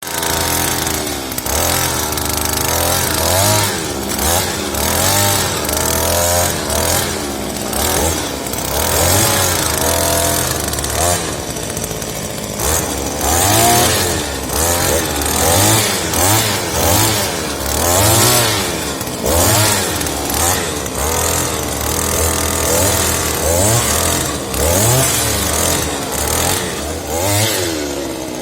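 Petrol engine of a Firman earth auger running and revving up and down over and over, its pitch rising and falling about once a second or so.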